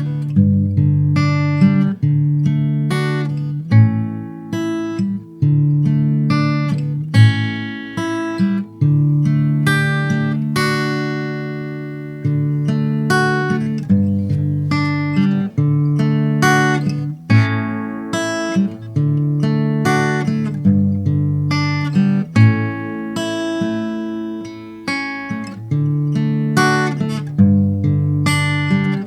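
Taylor GS Mini acoustic guitar playing a slow chord progression. Each chord is struck every second or two and left to ring out.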